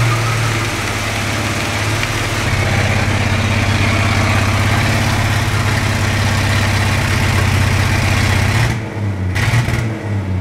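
1963 Chevrolet C10 pickup doing a burnout on a concrete floor: the engine is held at high, steady revs while the rear tyre spins with a steady rushing hiss. Near the end the revs drop away and the sound turns uneven.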